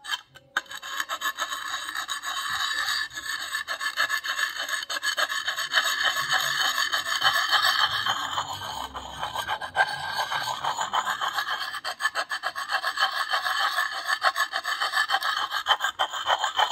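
Lansky sharpening puck, coarse-grit side, rubbed in quick circles against the high-carbon steel edge of a Marbles Hunter's Axe: a continuous gritty rasping of abrasive stone on steel, starting a moment in, as the edge is ground down toward the tip.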